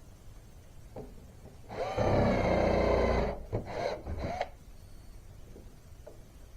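Power drill driving a deck screw into hickory: one steady run of about a second and a half, then two short bursts as the screw is snugged down.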